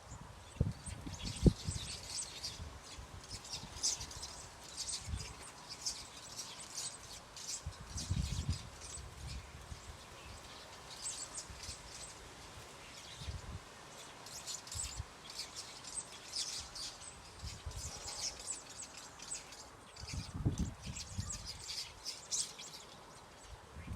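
Small birds chirping, many short high-pitched calls one after another, with low thumps and rumbles mixed in.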